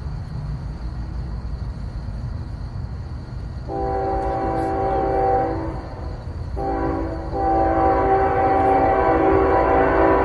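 An approaching diesel locomotive sounding its multi-chime air horn: two long blasts, the first about two and a half seconds, then after a brief break a longer, louder one still sounding at the end, over a steady low rumble.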